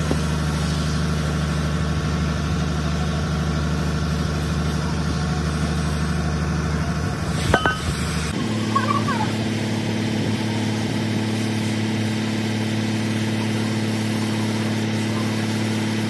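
An engine running steadily with a low, even drone. There is a sharp knock about seven and a half seconds in, and just after it the drone shifts abruptly to a higher pitch.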